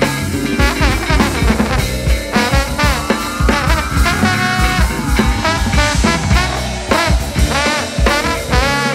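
Jazz-fusion band playing live: drum kit, electric bass, electric guitar, keyboards and trombone, with regular drum hits and a long note gliding upward in pitch around the middle.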